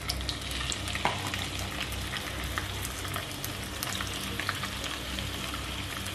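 Raw prawns sizzling in hot oil in a nonstick pan as they are dropped in by hand: a steady frying hiss with scattered crackles.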